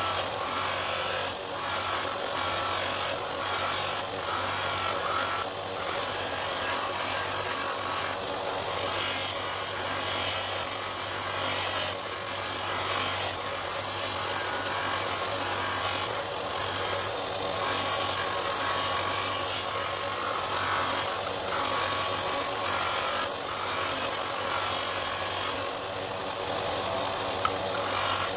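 Bench sander's motor running with a steady hum while a dense dark-wood ring with a brass centre is ground against the abrasive disc. The grinding rasp swells and eases as the ring is pressed on and turned, taking the excess wood off its outside.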